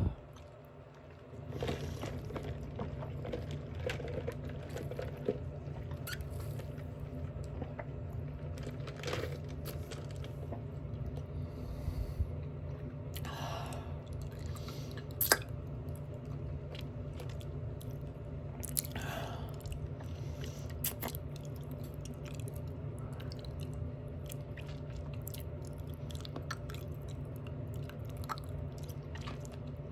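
Close-up open-mouth chewing of a McDonald's Big Mac: wet smacking and crunching with scattered sharp mouth clicks.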